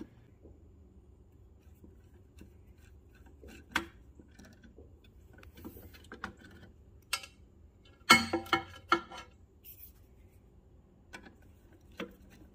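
Screwdriver working the screws out of a band saw's upper blade guide bracket, with scattered light metallic clicks and a brief rattle of small metal parts about eight seconds in.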